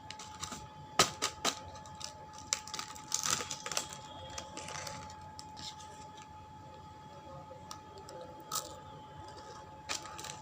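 Packaging of chocolate wafer rolls being handled: scattered crackles and sharp clicks, busiest in the first half and thinning out later, over a faint steady hum.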